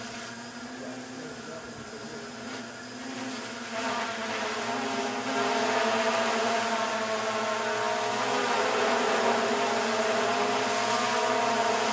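A small motor running with a steady, buzzing whine that gets louder about four seconds in, its pitch wavering slightly later on.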